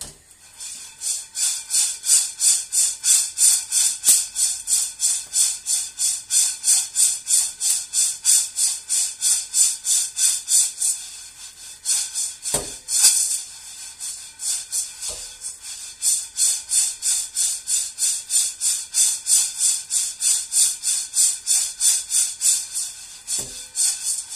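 Coffee beans rattling and sliding in a ceramic-coated frying pan as it is shaken back and forth, about three shakes a second, turning the beans so they roast evenly. The shaking pauses about halfway, with a couple of dull knocks of the pan, then resumes.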